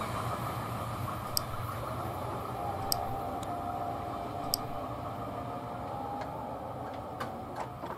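Freight train rolling away on the track, its wheel rumble slowly fading. Three sharp ticks come about a second and a half apart, with a few fainter clicks near the end.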